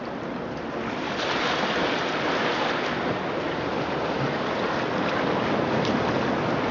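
Recorded ocean surf played through speakers built into a sculpture: a steady rush of breaking waves that swells about a second in.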